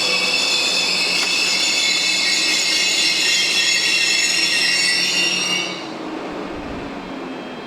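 Train wheels squealing on the rails as a train moves through the station: several high, slowly falling squeal tones over a rolling rumble. The squeal cuts off suddenly about three-quarters of the way through, leaving a quieter rumble.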